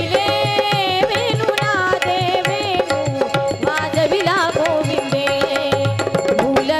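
Devotional kirtan music: a voice sings an ornamented, wavering melody over tabla strokes and steady held accompanying tones.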